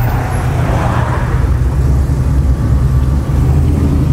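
A low, steady V8 exhaust drone heard from inside the cabin of a 2014 Shelby GT500 on the move, its engine a supercharged 5.8-litre V8. About a second in there is a brief rush of noise as another car passes close alongside.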